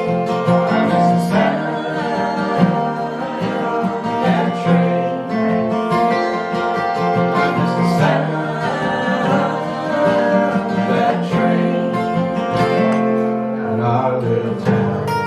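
Live acoustic folk music: a strummed acoustic guitar with other plucked strings, playing steadily.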